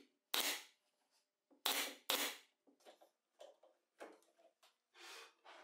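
Pneumatic brad nailer firing three times in the first two and a half seconds, each shot a sharp pop with a short puff of air, driving nails into glued plywood strips. Then come lighter clicks and knocks as bar clamps are slid on and tightened.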